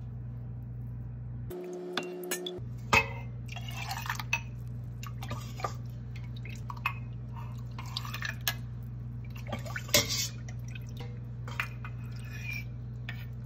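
Chicken broth and vegetables ladled and poured into measuring cups over a stainless steel pot: irregular drips and splashes of liquid, with clinks of the glass and metal cups, over a steady low hum.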